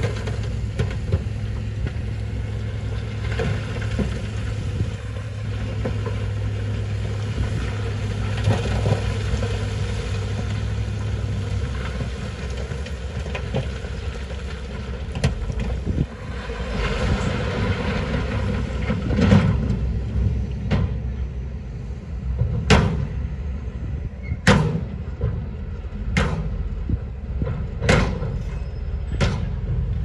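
Heavy diesel machinery running: a dump truck and a wheel loader working a load of stone. A steady low engine hum drops away about twelve seconds in, and through the second half sharp knocks come every second or two.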